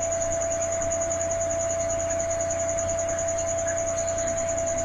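Steady background room tone: a low hum and a steady mid-pitched whine under a continuous high trill that pulses rapidly and evenly, with no distinct knocks or strokes.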